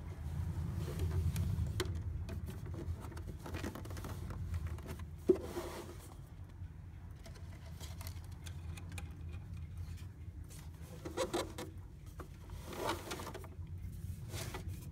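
Hands handling a Bakelite radio cabinet and its wires: fingers rubbing and scraping the ribbed case, with a sharp click about five seconds in, over a low steady hum.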